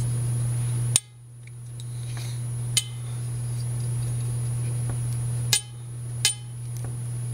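A few sharp, separate clicks and taps of small metal tools and harmonica parts being handled while a harmonica's reed plate is worked on, over a steady low hum.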